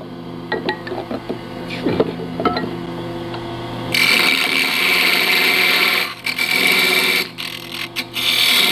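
Wood lathe running with a steady hum and a few light knocks, then about four seconds in a turning tool bites into the spinning ash blank and a loud, hissing scraping cut starts, breaking off briefly a couple of times.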